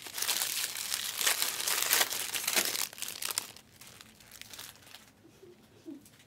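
Trading card pack wrappers crinkling and rustling as packs are handled and torn open, busiest for about the first three and a half seconds, then only faint rustling.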